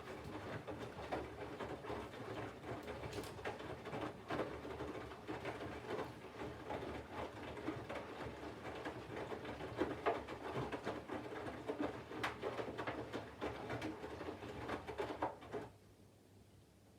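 Front-loading washing machine drum tumbling laundry in water during the heating phase of a 40° wash: sloshing and splashing with many soft knocks. It stops abruptly near the end as the drum comes to rest, leaving a faint low hum.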